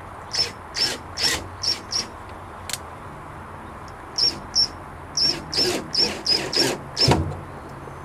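Hand-tool work on the gate hardware: a run of short, sharp scraping squeaks in two groups of about two to three a second, with a heavier knock about seven seconds in.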